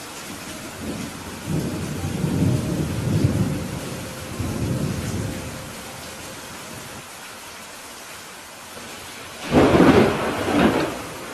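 Steady rain with thunder: a low rolling rumble in the first few seconds, then a sudden loud thunderclap near the end.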